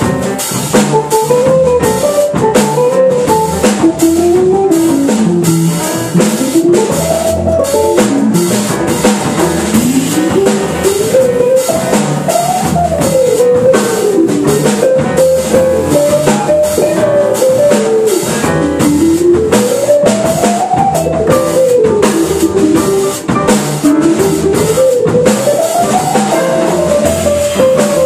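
Jazz played live on a hollow-body archtop electric guitar: fast single-note runs that climb and fall, over a drum kit with steady cymbal strokes.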